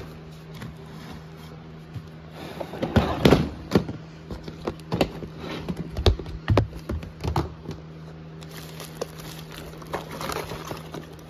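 Plastic zip-top bags of car parts crinkling and rustling while they are dug through in a plastic storage bin. Parts clack against each other and the bin in a run of sharp clicks and knocks, loudest from about three to eight seconds in. A steady low hum runs underneath.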